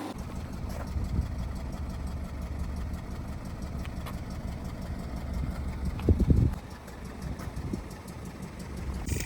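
Audi/VW 2.0T turbocharged four-cylinder engine idling with a misfire, the sign of a fuel injector stuck open and dumping fuel. A brief louder surge comes about six seconds in.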